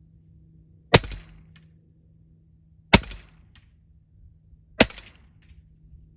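Western Airguns Sidewinder .30 calibre PCP air rifle fired three times in semi-auto, about two seconds apart. Each shot is a sharp crack, followed about half a second later by a faint tick.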